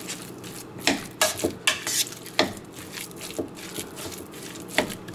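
A metal spoon stirring and mashing raw sausage-meat filling in a bowl, with irregular scrapes and clicks of the spoon against the bowl.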